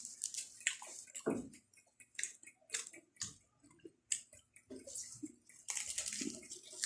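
Close-miked chewing of fresh sweet potato leaves: soft, irregular crunches and wet mouth clicks.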